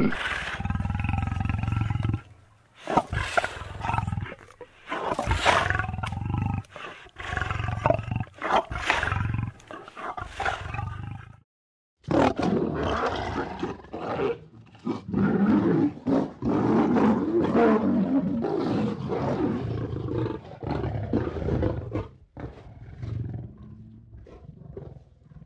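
Lions vocalising: a long run of repeated roaring calls, one after another, broken by a short silence about halfway through.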